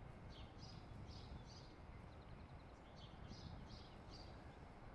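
Faint outdoor background noise with a small bird chirping in short high calls, in two groups and a quick rapid series between them.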